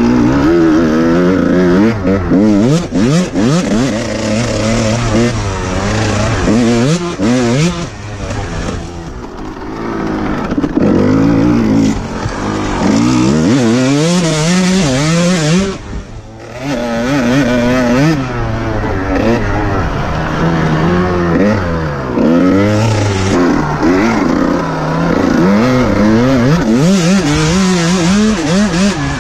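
Kawasaki KX125 two-stroke single-cylinder engine revving again and again, its pitch rising and falling, with a short drop-off about sixteen seconds in.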